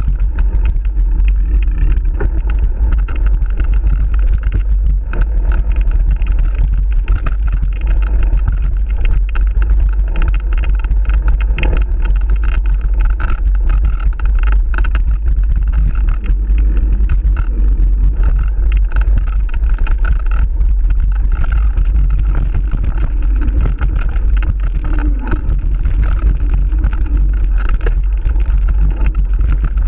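Riding noise from a mountain bike on a rough dirt trail: a steady low rumble of wind buffeting the microphone with constant rattling and clattering from the bike and camera mount over bumps.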